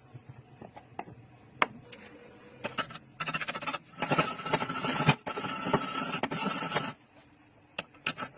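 Wire brush scouring metal: dense scraping in several bursts that start about three seconds in and stop about seven seconds in, after a few scattered clicks and knocks.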